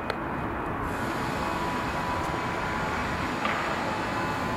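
Airbus A319 jet engines running: a steady rush with a thin whine.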